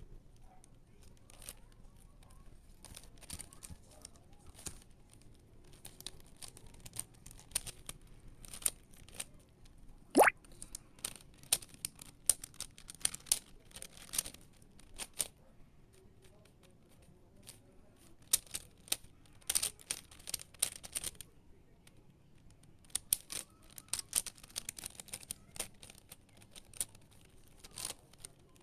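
Plastic 5x5 Rubik's cube being turned by hand: irregular runs of quick clicks and rattles from the layers snapping into place, with short pauses. About ten seconds in, one brief rising squeak stands out as the loudest sound.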